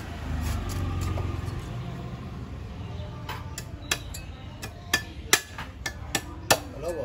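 A steel cleaver chopping and shaving the husk of a young green coconut on a wooden block: a quick run of sharp chops, two or three a second, beginning about three seconds in.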